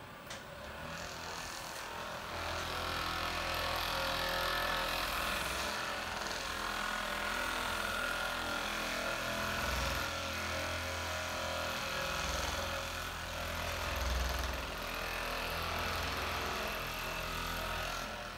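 Two Hypervolt handheld percussion massagers running on their second speed setting, pressed into the back muscles: a steady motor buzz with the rapid hammering of the heads, growing louder about two seconds in.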